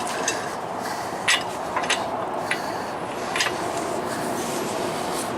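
Sharp metallic clicks of a socket wrench working the U-bolt nuts on a truck's front axle as they are re-torqued, about five strokes spread irregularly over a steady background noise.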